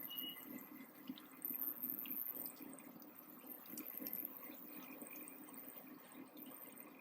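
Faint bubbling and light popping of liquid cooking in a pan over high flame, as the chicken's water boils off.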